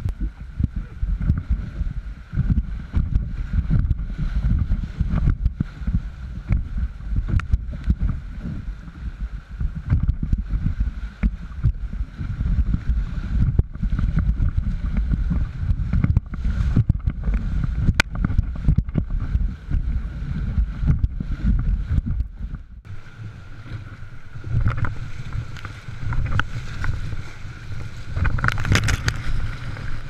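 Whitewater rapids rushing against a canoe, picked up by a camera fixed in the hull as a heavy low rumble, with many short knocks against the boat. It grows brighter and louder near the end as the canoe hits bigger waves.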